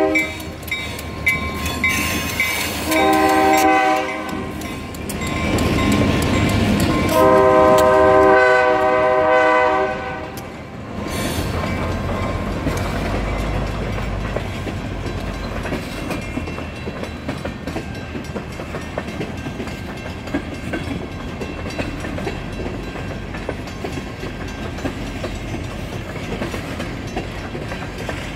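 Reading Blue Mountain & Northern freight train passing close by. The locomotive's multi-tone air horn sounds a short blast about three seconds in and a longer blast a few seconds later. Then the steady rumble and clickety-clack of freight cars rolling past.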